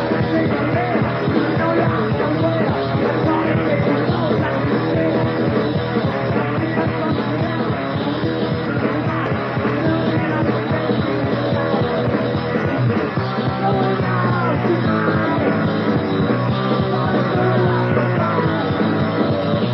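Heavy metal band recording from a 1983 demo: distorted electric guitars, bass and drums playing loud and steady without a break.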